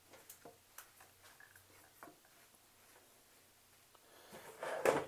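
Faint, sparse clicks and taps of bread slices being laid out on a grill to toast, then a louder swell of noise near the end.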